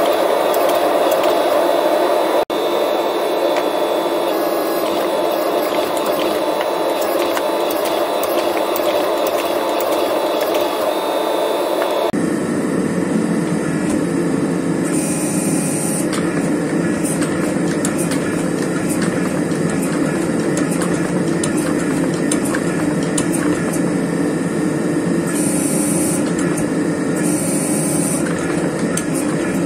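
Blacksmith's forge running with a steady rushing noise, cutting out for an instant about two and a half seconds in and turning deeper about twelve seconds in.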